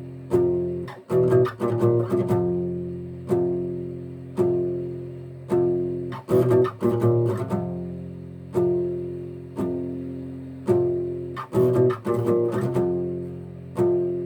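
Old warped acoustic guitar played in a dark metal style: single ringing chords struck about once a second and left to decay, broken every five seconds or so by quick flurries of picked notes.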